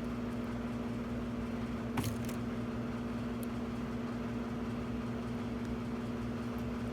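A steady electrical hum runs throughout. About two seconds in there is a sharp click, then a lighter one, as the lock cylinder is worked out of the door handle.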